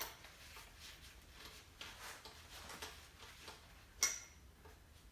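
Scattered light metallic clicks and taps of tools and loose engine parts being handled, with one sharper, ringing clink about four seconds in.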